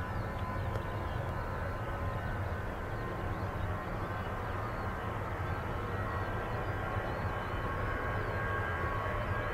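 Twin-engine narrow-body jet airliner taxiing, its engines a steady low rumble that grows slowly louder as it comes closer.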